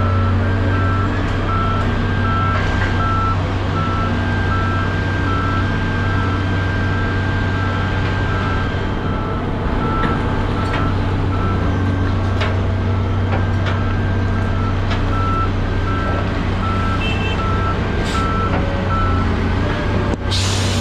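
A vehicle's reversing alarm beeping at an even pace over a running engine, stopping shortly before the end. A few short knocks and a brief rushing noise follow near the end.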